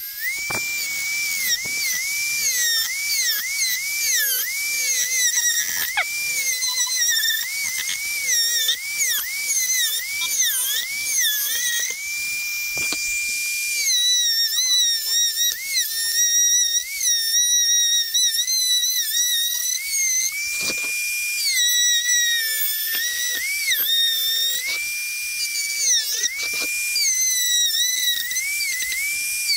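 Dremel rotary tool with a small cutting wheel whining at high speed as it cuts through a 3D-printed plastic hull. Its pitch dips over and over as the wheel bites into the plastic, then rises back each time it runs free.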